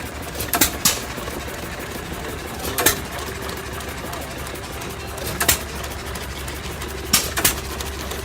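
Belt-driven jig saw running: a steady low mechanical hum with a handful of sharp clicks or knocks at uneven intervals.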